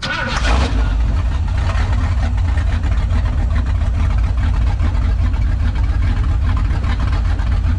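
Ford 302 Cleveland V8 in a 1976 Ford XB ute starting with no exhaust fitted, straight out of open pipes. It catches about half a second in with a short loud flare, then settles into a loud, steady idle.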